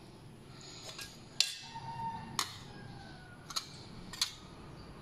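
About five sharp metallic clicks and knocks as an opened tin can is worked against a plate to push a canned beef loaf out, the loudest about a second and a half in.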